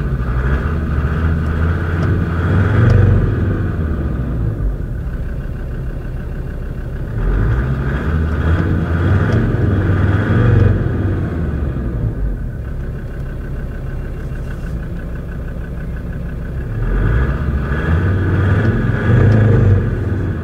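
Land Rover Discovery 2's Td5 five-cylinder turbodiesel engine running and revved three times, each rev swelling and easing back toward idle.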